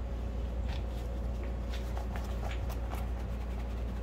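Steady low hum of the workshop background, with a few faint light clicks and taps scattered through, typical of small handling noises.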